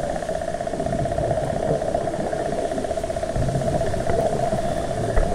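Underwater ambience: a steady droning hum with a fast flutter over a low rumble, with a short low thump near the end.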